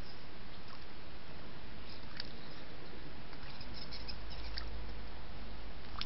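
Steady hiss from a small outdoor camera's microphone, with a few faint, short high ticks about two seconds in and a cluster of them near four and a half seconds.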